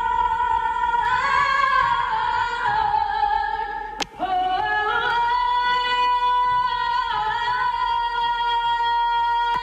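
A woman singing a Broadway show tune in high, sustained notes; about four seconds in the sound briefly drops out, then she holds one long, steady high note.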